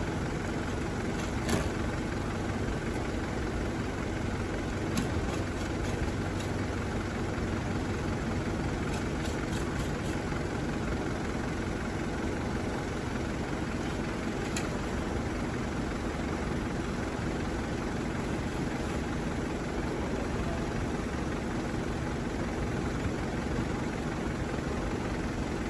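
Fire engine's engine idling steadily, with a few light clicks now and then.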